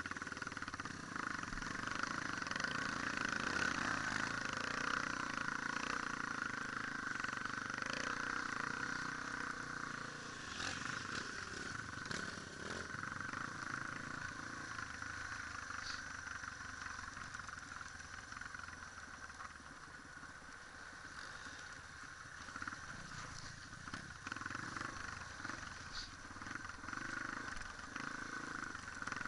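Off-road motorcycle engine running while riding a rocky dirt trail, its pitch rising and falling with the throttle, with occasional knocks from the rough ground.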